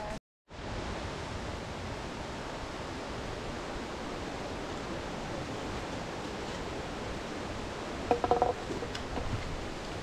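Steady rush of running water from a forest stream, with a brief pitched call about eight seconds in.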